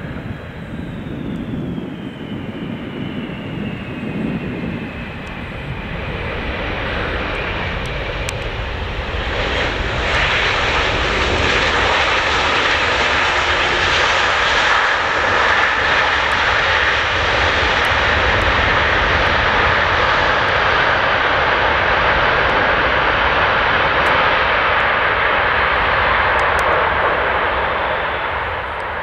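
Boeing 747 jet engines during landing: a high whine that falls steadily in pitch over the first several seconds as the jet touches down. From about ten seconds in, a much louder, steady rush of engine noise holds as the jet rolls out down the runway, fading near the end.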